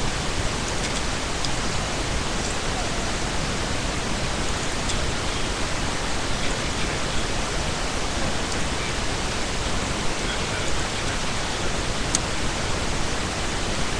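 Steady, even hiss that does not change throughout, like the noise of a webcam microphone turned up high.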